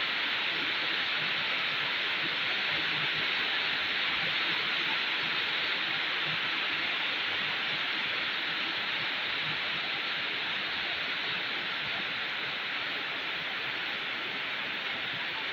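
Rain falling steadily, an even hiss that holds the same level throughout.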